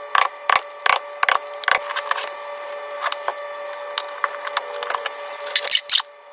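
A series of sharp taps or clicks, about three a second at first, then lighter scattered ticks and two louder scraping strokes near the end, over a steady hum.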